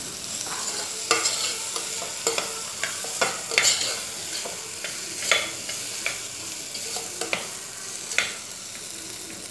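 Metal spoon scraping and stirring diced potatoes and onions in the bottom of an aluminium pressure cooker, with hot oil sizzling steadily underneath. The scrapes come irregularly, about one every half second to second, over the frying hiss.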